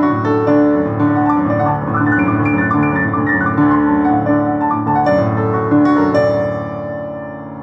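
Piano music: a melody of held notes over low chords and bass, growing softer near the end as a phrase closes. It is a Guatemalan melody arranged for solo keyboard.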